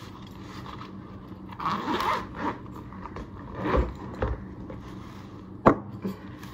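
Zipper of a fabric insulated lunch bag being pulled open in several short strokes, with one sharp click near the end as something hard is handled.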